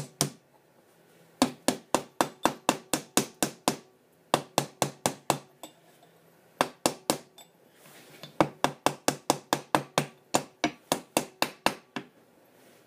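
Hammer tapping a small cap into a rebuilt shock absorber to seat it: sharp, rapid taps, about four a second, in several runs with short pauses between.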